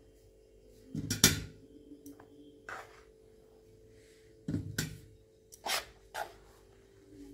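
Dishes and cutlery clattering during a meal: a handful of separate sharp knocks and clinks of plates and utensils, the loudest about a second in, over a faint steady hum.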